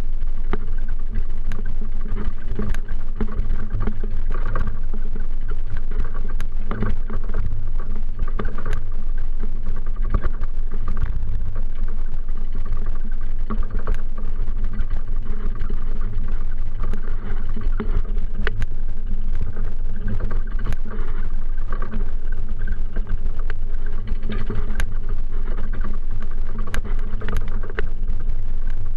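Steady low rumble of a bicycle-mounted camera on the move along a city street, with scattered short rattling clicks from the bike.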